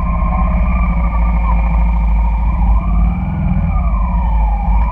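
Honda Shadow cruiser's V-twin engine running at low speed in stop-and-go traffic, a steady deep rumble. Over it, a wavering tone slides slowly up and down.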